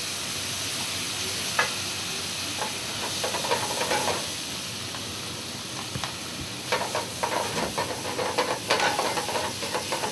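Salmon fillet sizzling in a hot sauté pan with tomatoes, shallots and beer, steady frying hiss throughout. Metal tongs clink and scrape against the pan, a few times early and in a quick flurry over the last few seconds.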